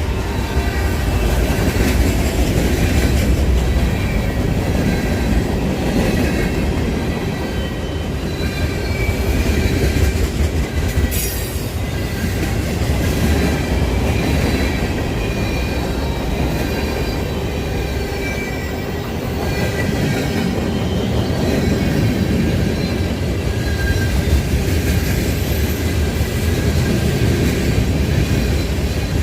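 CSX freight train passing close by: a steady rumble of the cars' wheels on the rails, with short high-pitched squeals from the wheels coming and going throughout.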